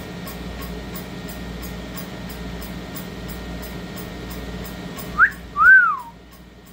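A short two-note whistle over a steady background hum: first a quick rising note, then a louder note that rises and falls away.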